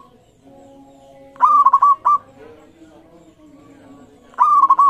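Local zebra dove (perkutut) singing its rolling coo phrase, a quick run of repeated notes, twice: about a second and a half in, and again near the end.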